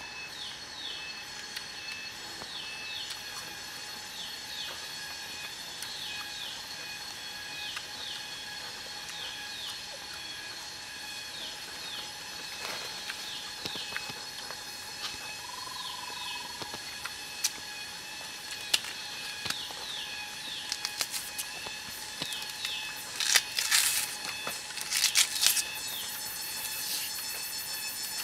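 Forest ambience: a short, high, falling bird chirp repeats about once a second over a steady high drone, with a lower whistled call midway and again at the end. In the last third come scattered clicks and a few louder rustling, scraping noises from handling the stick and leaves.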